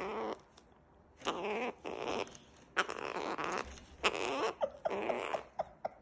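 Male gang-gang cockatoo making a run of short, rasping growls, after a brief quiet spell near the start.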